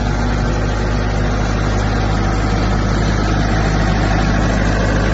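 Diesel-driven 132 kW water-cooled screw air compressor running at a steady, unchanging speed with a loud low hum.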